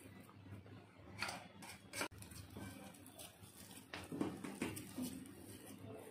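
Boiled potato pieces being mashed by hand into maida flour in a steel bowl: faint, irregular squishing and rustling, with a few louder soft pats and one sharp click about two seconds in.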